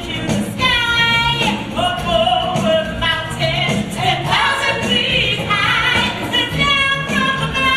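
A musical theatre song: several voices singing held, gliding notes over an instrumental accompaniment.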